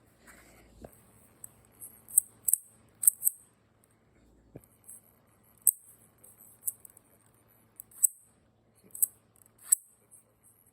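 Irregular sharp clicks and snaps of hard plastic parts being handled, about a dozen over the span, from a 3D-printed pistol being worked by hand.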